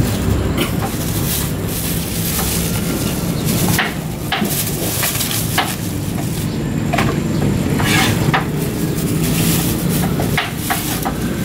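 Plastic bag crinkling and rustling in irregular bursts as cut fish pieces are tipped into it and the bag is gathered and tied, over a steady low hum.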